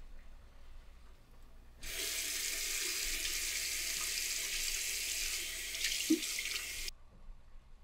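Bathroom sink tap running for about five seconds while water is splashed on the face, starting suddenly and cutting off abruptly, with a brief sharp sound just before it stops.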